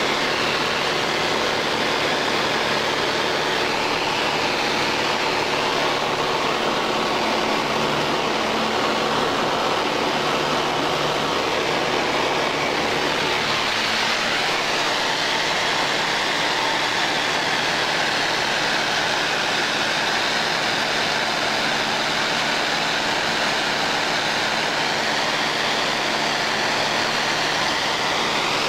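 Small high-wing airplane's engine and propeller droning steadily, heard from inside the cabin. The deep rumble thins a little about halfway through.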